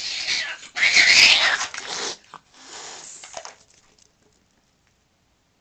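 Cat in a standoff or fight, hissing and letting out loud, rough screeching yowls. The noise is loudest in the first two seconds, trails off fainter, and stops about four seconds in.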